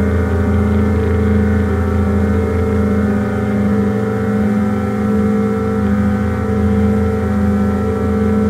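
Drone music from a self-released cassette tape: a dense stack of sustained tones over a strong low hum, with a middle layer that wavers in a slow, even pulse.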